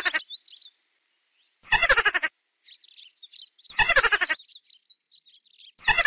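Mouse squeaking sound effect: a short burst of squeaks about every two seconds, with faint high chirps in between.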